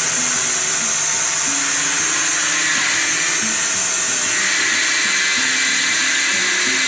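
Steady, loud rushing motor-and-air noise of running woodworking machinery at a CNC boring and drilling machine. The tone shifts slightly, turning more mid-pitched, about four seconds in.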